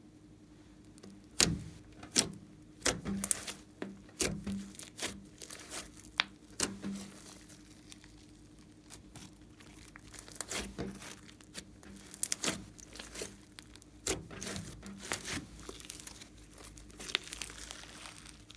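Slime being squished and stretched by hand, giving irregular crackling clicks, over a faint steady hum.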